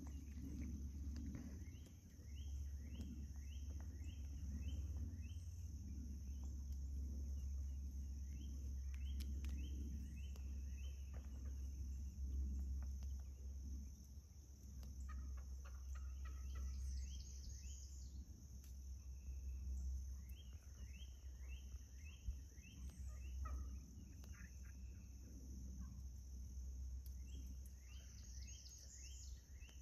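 Wild turkeys calling in about five runs of six to eight quick, evenly spaced notes each. Under them are a steady high insect drone and a low rumble.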